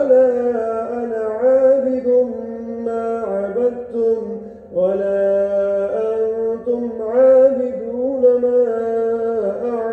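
A man's voice reciting the Quran aloud in melodic tajweed style, holding long, wavering notes, with a short pause for breath about halfway through.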